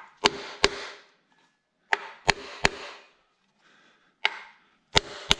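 About eight sharp knocks in twos and threes as the front timing cover of a BMW N62 V8 is tapped to seat it, its top edge not yet sitting flush against the engine.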